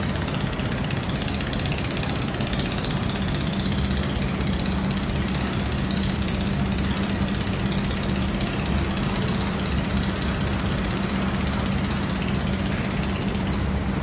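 Steady machine noise of a robotic fiber laser welding cell at work: a constant hiss with a low hum that grows stronger a few seconds in and eases off near the end.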